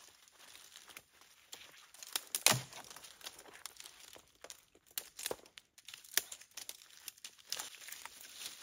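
Dry sticks and twigs cracking and snapping as they are handled, over the rustle and crunch of dry fallen leaves underfoot. The loudest crack comes about two and a half seconds in, with scattered lighter snaps after it.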